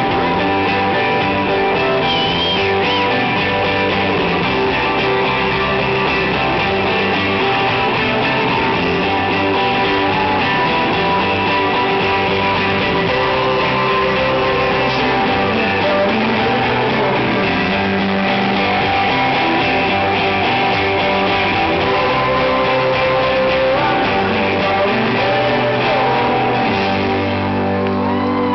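A rock band playing live, with strummed electric guitars, loud and steady throughout.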